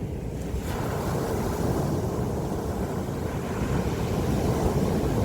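Wind buffeting the phone microphone over the rush of sea surf: a steady, low rushing noise that swells about a second in.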